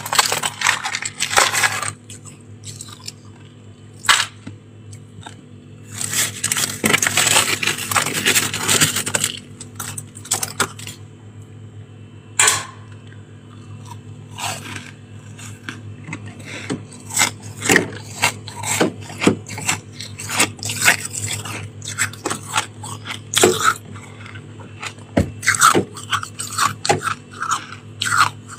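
Freezer frost being scraped off the frosted inner wall by hand and crunched in the mouth: scattered short scratches, a long scrape about six seconds in, then a quick run of crunches in the second half.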